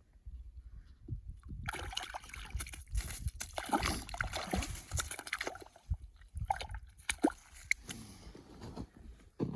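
Water sloshing and splashing with scattered sharp clicks and knocks, starting suddenly a little under two seconds in, typical of hands or gear working in an ice-fishing hole or a bait bucket.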